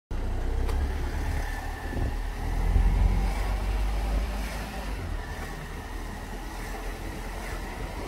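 Wind buffeting the phone's microphone: a low, uneven rumble that swells in gusts, strongest about three seconds in.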